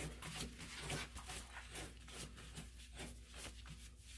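Faint handling noise of a gloved hand working a lathe tailstock die holder along a freshly threaded steel screw: scattered light scrapes and small metal ticks over a low steady hum.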